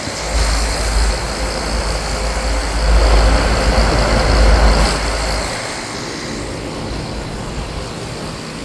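A bank of Bryant 561CP outdoor air-conditioner condensing units running together, a steady mix of condenser fan noise and compressor hum. A heavy deep rumble over the sound for the first five seconds or so stops suddenly.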